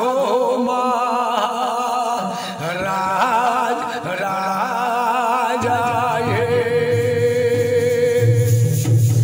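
Male voice singing a jhumar folk melody with wavering, ornamented pitch. About halfway through, a long steady note sounds over a low accompaniment.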